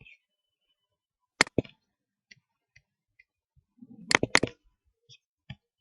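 Computer clicking at a desk: two pairs of sharp clicks, one about a second and a half in and a louder one about four seconds in, with a few fainter ticks between.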